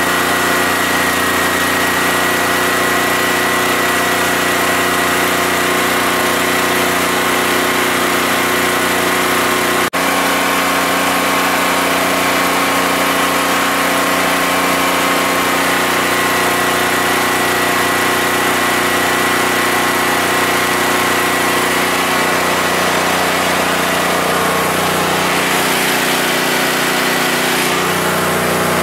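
Yamakoyo SH7000DXE generator's 13 hp engine running steadily on natural gas under a heavy load of about 5600 W.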